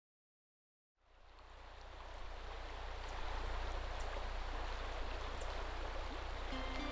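Rushing river water fading in after about a second of silence, an even wash of noise over a steady low rumble. Music starts to come in near the end.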